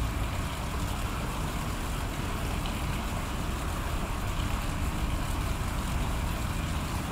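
Steady outdoor background noise with a fluctuating low rumble, typical of wind buffeting the microphone; no distinct sound from the elephant.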